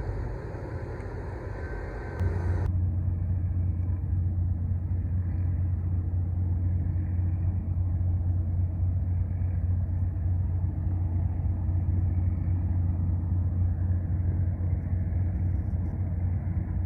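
A ship's engine droning with a steady low hum, which cuts in abruptly about two seconds in after a brief broader rushing noise.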